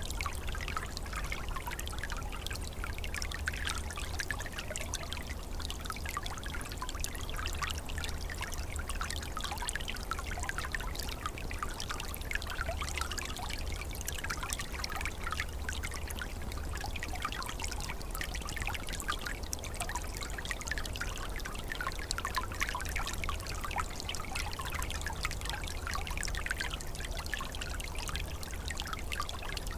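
Small calm stream flowing steadily, with a constant trickling and gurgling of water over a low steady rumble.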